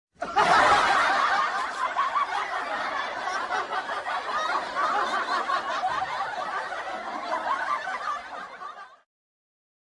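Stock comedy laughter effect: several people snickering and chuckling together. It cuts off suddenly near the end.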